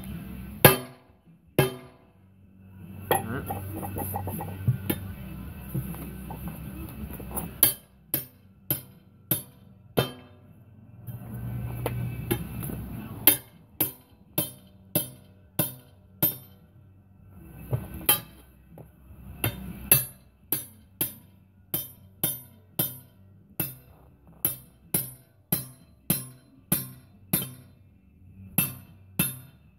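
Hammer blows on the outer lip of a steel 5-ton military combat wheel, knocking the lip down to free it from the tire bead: sharp ringing metal clanks, a few scattered at first, then a steady run of about three blows every two seconds through the second half. Two stretches of steady low noise come between the early blows.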